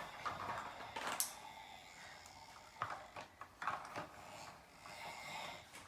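A few light knocks and clicks of plastic toy trucks being handled and bumped together, spaced irregularly.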